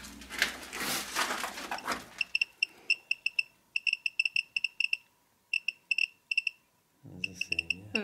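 Handheld Geiger counter chirping one short, high beep per detected count, at an irregular rate of several a second in clusters, signalling raised radiation over the debris being measured. In the first two seconds it is preceded by rustling and scraping as a gloved hand works through the debris.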